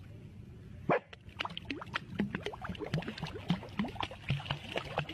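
A dog splashing in a backyard pool: quick, irregular slaps of water as it beats the surface with a front paw, with short whimpers mixed in.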